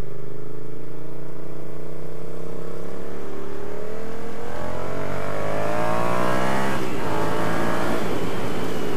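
Yamaha MT-07's parallel-twin engine through an aftermarket Mivv Speed Edge exhaust, accelerating out of a roundabout. The engine note climbs steadily for about seven seconds, breaks off briefly at an upshift, then pulls on at a lower pitch.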